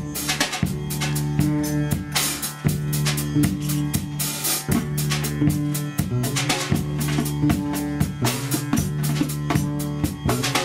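Instrumental acoustic jam: a drum kit keeps a steady beat with snare and bass drum, while a guitarrón plucks a bass line under sustained low held notes.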